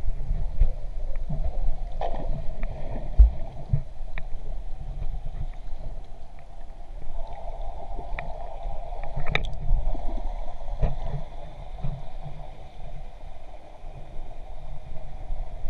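Muffled underwater sound picked up by a GoPro in its waterproof housing: a steady low rumble of moving water with scattered clicks, the sharpest about nine seconds in.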